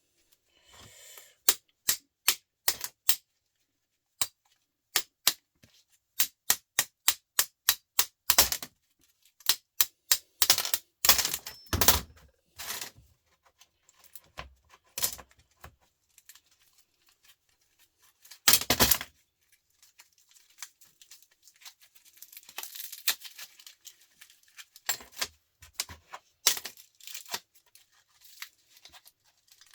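Sharp clicks and knocks from hand tools working on a metal fluorescent light fitting. They come in quick irregular runs, with louder clattering clusters about 8, 11 to 12 and 19 seconds in.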